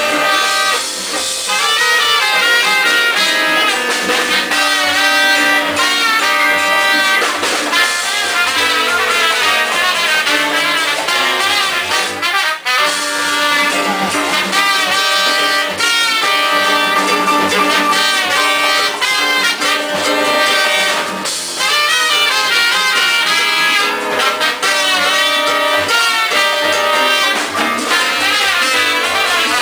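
Live Latin jazz band playing, with two trumpets carrying the melody together over piano and percussion.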